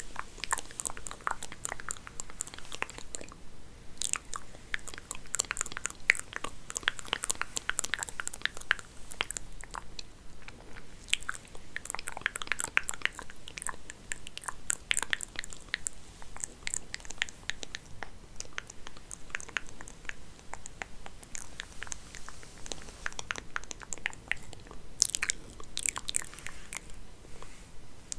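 Wig hair being played with close to the microphone: dense, crackly rustling made of many small irregular clicks, with a few brief lulls.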